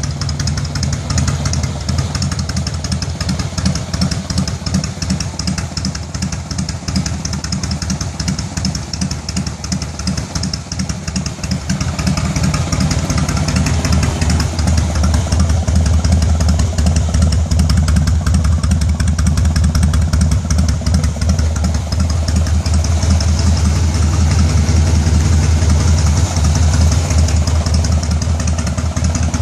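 Harley-Davidson touring bike's V-twin idling low and steady, at about 647 rpm on a ThunderMax engine controller. It gets louder about halfway through.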